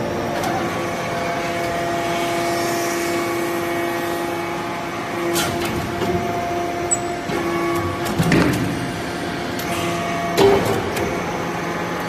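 Hydraulic power unit of a vertical metal-chip briquetting press running with a steady hum, with a few sharp clicks and knocks as the press works.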